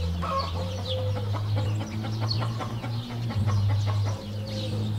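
Birds calling over a steady low hum, with many small clicks.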